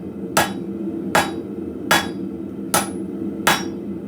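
Hand hammer striking hot spring steel on an anvil, five even blows a little more than one a second, drawing out a taper. A steady low hum runs underneath.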